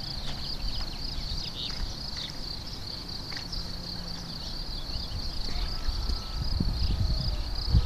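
A steady, high-pitched insect chorus, pulsing rapidly, over low rumbling noise.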